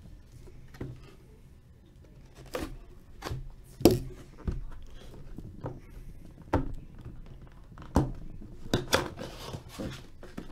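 Cardboard hobby box of 2015-16 Upper Deck The Cup hockey cards being handled and turned over on a desk: irregular knocks and taps, the loudest about four seconds in, with light rustling between them.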